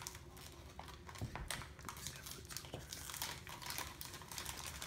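Foil booster packs crinkling and crackling as they are handled and cut open, in irregular bursts.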